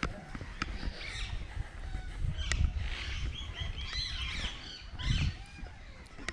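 Small birds chirping, a cluster of short rising and falling calls in the middle, over a low rumble, with a few sharp clicks.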